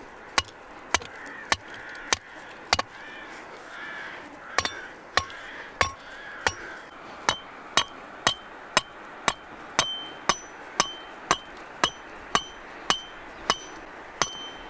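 Rock striking the head of a steel stake, driving it into stony ground: sharp knocks about two a second, with a short pause a few seconds in. The later strikes ring with a short metallic ping.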